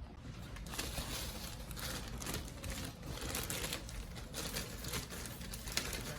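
Irregular crinkling and rustling handling noise with light clicks, as parts and wiring of a refrigerator are handled during disassembly.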